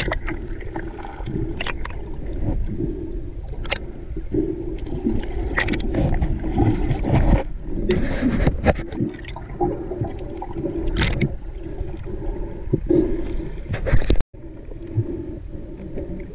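Underwater noise picked up by a submerged camera as a diver swims: muffled churning water and bubbles from fin kicks, with scattered clicks and knocks against the camera housing. The sound cuts out for an instant near the end.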